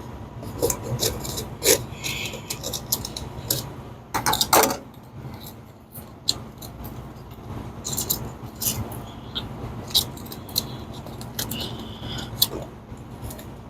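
Hand work with tools in a commercial oven's cabinet: scattered small clicks, light metallic taps and scraping as tape is pulled back and a slit is cut in the covering over the high-limit probe, with a louder scrape about four and a half seconds in.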